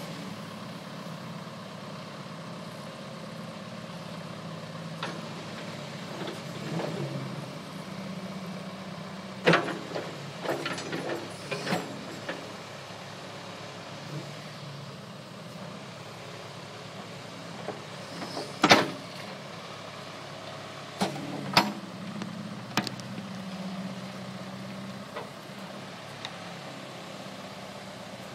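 John Deere 410 backhoe's engine running while the hoe is worked, its note shifting up and down at times. Several sharp clanks cut through it, the loudest about two-thirds of the way through.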